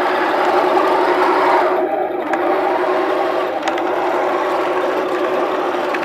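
Homebuilt wooden 1:16 remote-control Maus tank with a Heng Long 5.3 drive system running, its electric drive whirring steadily as it moves, with a couple of faint clicks about two and four seconds in.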